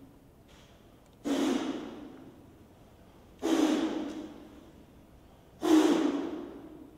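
A man's loud, forceful exhalations, three of them about two seconds apart, each starting suddenly and trailing off over a second or so.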